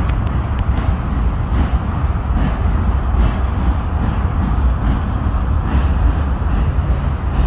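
Freight train cars rolling across a bridge: a steady low rumble with faint clicks every second or so as the wheels pass over the rails.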